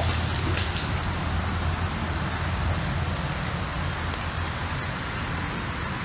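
Steady low rumbling noise with hiss, easing slightly in level.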